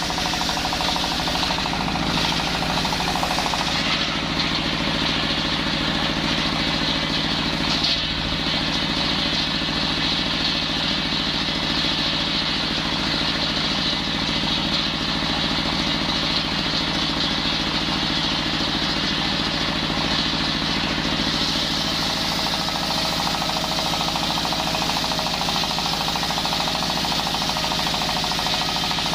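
Engine-powered circular saw running steadily while cutting wood, with a constant engine note and a high hiss from the blade.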